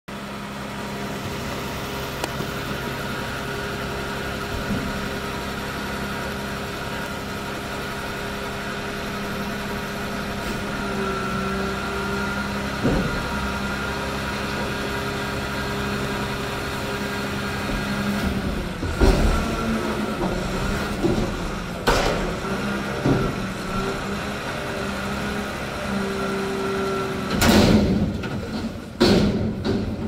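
Mack McNeilus front-loader garbage truck's diesel engine running steadily, its pitch stepping up slightly about a third of the way in as the hydraulics work. In the last third, loud metal clanks and bangs sound as the forks pick up and lift a dumpster.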